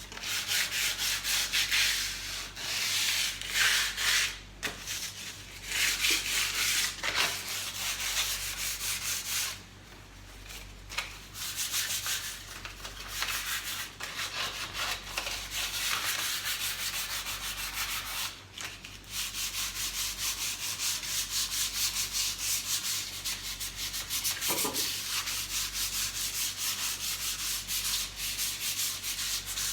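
Sandpaper rubbed by hand over a fireplace surface to prepare it for white paint: a continuous scratchy sanding in rapid back-and-forth strokes, with short pauses about ten seconds in and again near eighteen seconds.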